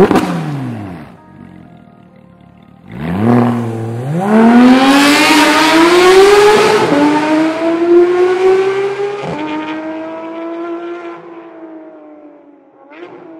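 Porsche 991 GT3's naturally aspirated flat-six through an Fi valvetronic catback exhaust. A sharp rev blip falls away, there is another rev about three seconds in, then the car pulls away hard, its pitch climbing through two upshifts before it fades into the distance, with a last faint blip near the end.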